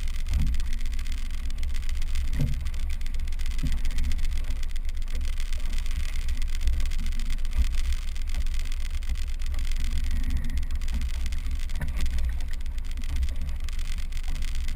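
Inflatable rescue boat under way on its outboard motor, with a steady low wind rumble on the microphone and a hiss of water along the hull.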